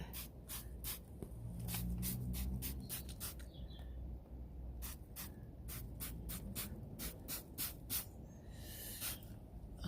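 Exhaust-cleaner spray bottle squirting in quick, short hisses, about three a second, onto hot exhaust downpipes, with one longer spray near the end.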